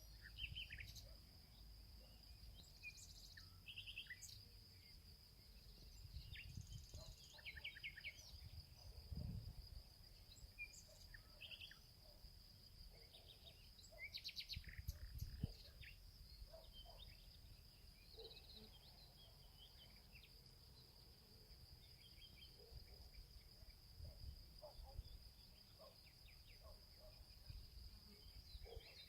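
Faint outdoor ambience: a steady high insect drone, like crickets, with scattered short bird chirps and a few low rumbles, the strongest about a third and halfway through.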